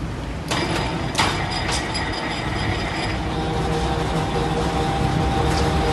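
Rebar bending machine running under its electric motor and gearbox, a steady mechanical hum with a few sharp metallic clinks of steel bar in the first two seconds.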